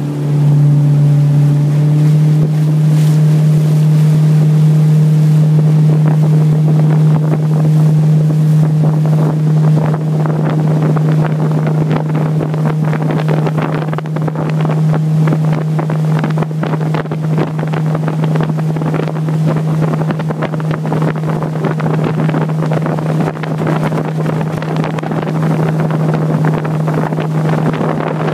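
Motorboat engine running steadily under way with a low, even hum that picks up just after the start, as wind buffets the microphone and water rushes along the aluminium hull.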